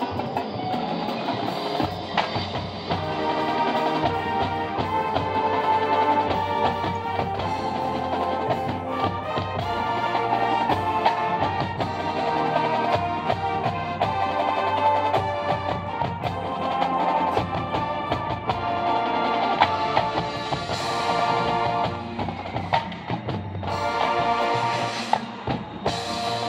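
High school marching band playing its field show: sustained wind and brass chords over drums.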